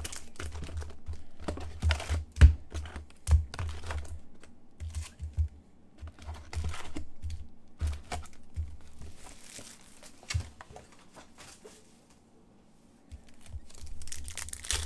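Upper Deck hockey card foil packs crinkling as they are handled out of a cardboard hobby box, with several sharp knocks on the table. Near the end a pack is torn open.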